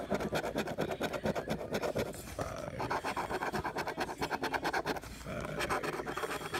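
A coin scraping the coating off a scratch-off lottery ticket in rapid, repeated strokes.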